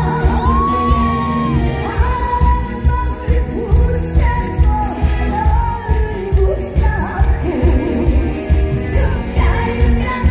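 A live song with a female lead singer over band backing, driven by a steady, regular bass beat.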